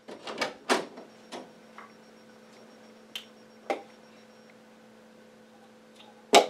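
A few light clicks and taps as a wooden bedroom door is handled, over a faint steady hum, then one sharp knock on the door near the end.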